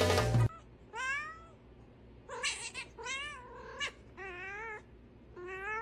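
A cat meowing repeatedly, about six separate meows, each one bending up and then down in pitch. A few bars of background music cut off about half a second in.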